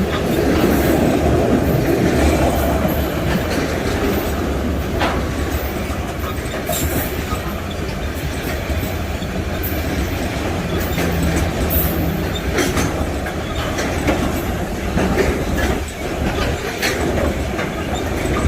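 Freight train cars rolling past, a steady rumble with the repeated clicking of wheels over the rail joints.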